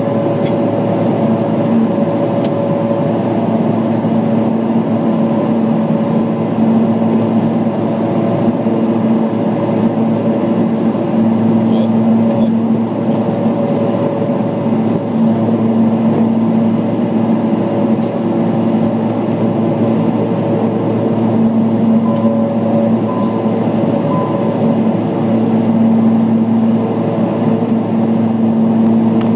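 Steady drone of a small aircraft's engine heard inside the cabin in level flight, a constant low hum with a steady tone above it over airflow noise.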